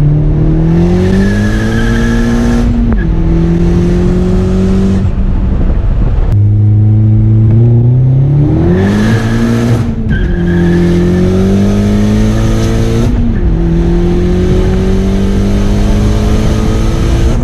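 Turbocharged 1.8T four-cylinder engine of a VW Mk4 Jetta under hard acceleration. The revs climb steadily and fall back sharply at each upshift, a few times over.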